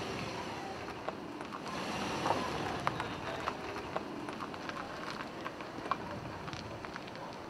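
Subaru Impreza sedan driving slowly past and away across a rough lot: a steady tyre and engine noise with scattered small clicks.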